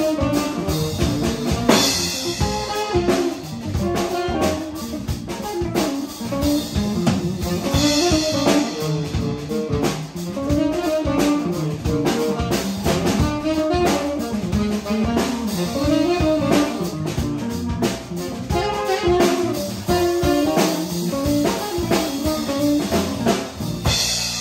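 Live blues quartet: tenor saxophone over electric guitar, electric bass and drum kit. Cymbal crashes come about two seconds in, at about eight seconds, and near the end as the tune winds down.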